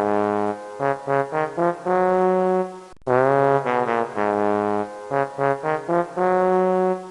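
Outro music: a short jingle of held pitched notes, the same phrase played twice.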